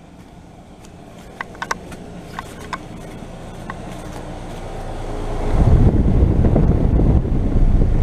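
A 2012 four-ton Rheem Classic heat pump's outdoor unit running in heat mode, its steady hum growing louder as the microphone approaches. There are a few crackling steps in dry leaves early on. From about five and a half seconds in, a loud rush of the condenser fan's air blows across the microphone.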